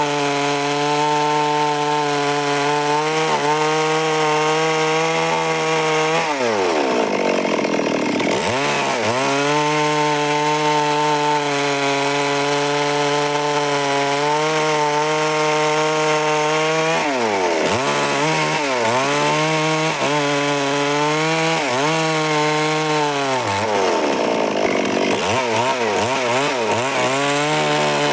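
Stihl MS 382 two-stroke chainsaw running near full throttle while cutting wood. Its pitch sags under load and recovers several times: around six to nine seconds in, and again repeatedly from about seventeen to twenty-six seconds in.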